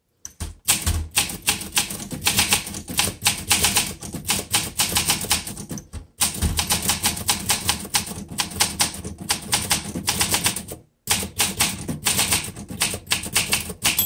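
Rapid typing on a 1963 Olympia SM7 manual portable typewriter: a quick run of typebar strikes against the platen, with brief pauses about six and eleven seconds in.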